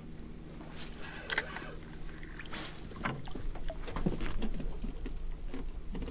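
Small boat on the water: irregular knocks and water sloshing against the hull, starting about three seconds in, after a couple of sharp clicks. A steady high-pitched whine runs underneath.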